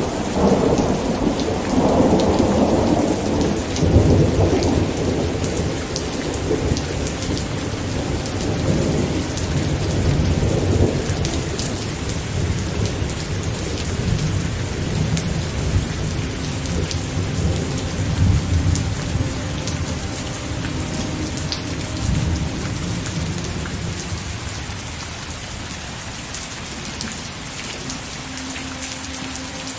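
Steady rain falling, with a long roll of thunder rumbling under it that is strongest in the first few seconds and dies away over the last third.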